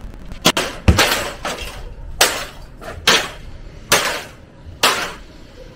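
A television being smashed with about six heavy overhead blows, roughly one a second, each a sharp crash followed by glass and plastic breaking and rattling.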